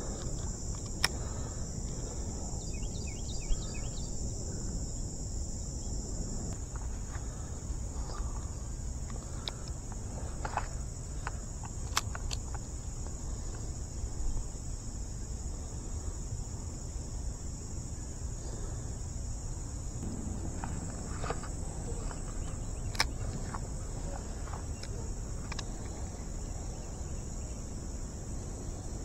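Steady, high-pitched chorus of insects over a low rumble, broken by a few sharp clicks that are the loudest sounds.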